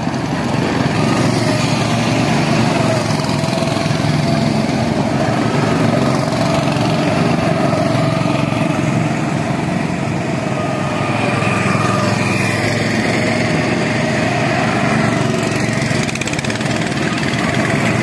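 Small gasoline go-kart engines running as several karts drive around the track, a steady buzzing drone. One engine note rises and then fades around the middle.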